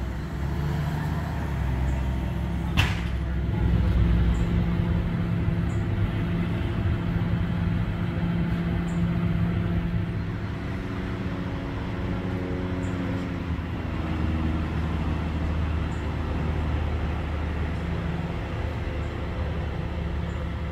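Large truck engine idling with a steady low hum. A single sharp knock sounds about three seconds in.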